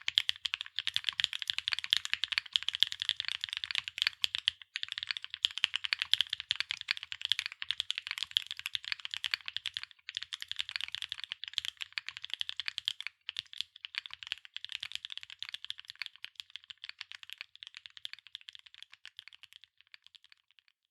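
Fast, continuous typing on a Cycle7 custom mechanical keyboard with MMD Vivian linear switches, an aluminium plate and PBT+ABS double-shot keycaps: a dense run of keystroke clacks with a few brief pauses, thinning out and getting quieter near the end.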